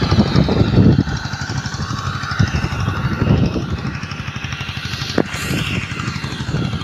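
The motorcycle engine of a sanedo sprayer rig running steadily as it drives through the crop while spraying. It is loudest for about the first second, then steadier and a little quieter, with one sharp click about five seconds in.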